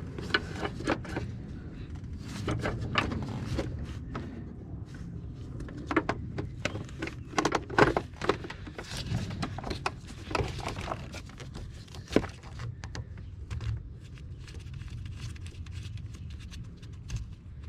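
Hands working on a car's headlight bulb and wiring: scattered, irregular plastic clicks, taps and rustling as the bulb, connector and LED driver are handled and fitted.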